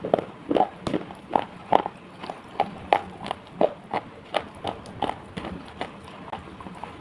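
Edible slate pieces being bitten and chewed close to the microphone: sharp, dry crunches about two to three a second, thinning out near the end.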